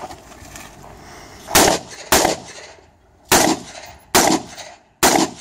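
Five rifle shots, each loud and sharp with a short echo trailing after it. They come as two pairs, a little over half a second and just under a second apart, then a single shot near the end.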